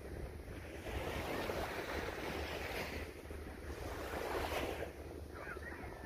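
Small sea waves washing onto a sandy beach, swelling and easing every second or two, with wind rumbling on the microphone.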